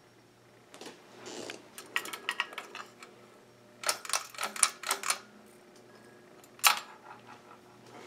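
Encon Empress ceiling fan running with a faint, steady low hum, overlaid by several bursts of rapid clicking and rattling, the loudest a single sharp clack near the end.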